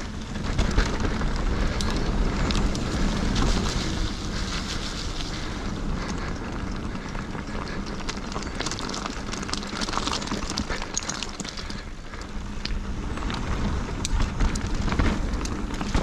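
Mountain bike riding fast downhill over loose shale gravel and dirt: tyres crunching on stones and wind buffeting the camera microphone, with frequent clicks and rattles throughout.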